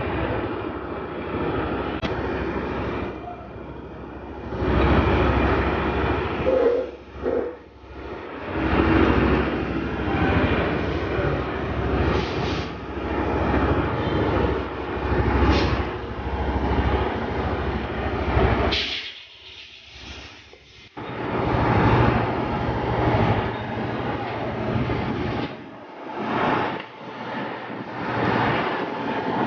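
Motorcycle running, a continuous rushing engine-and-road noise that swells and eases. It drops away briefly about two-thirds of the way through.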